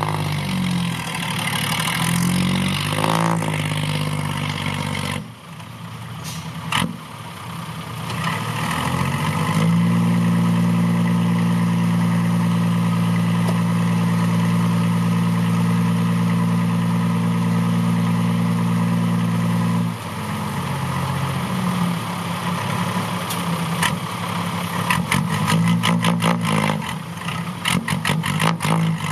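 Six-wheel dump truck's diesel engine running, its revs rising and falling, then held steady at raised revs for about ten seconds before dropping back. A run of sharp clicks and knocks comes near the end.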